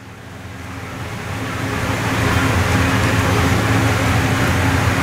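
Steady hum and hiss of background noise, fading up over the first two seconds and then holding steady.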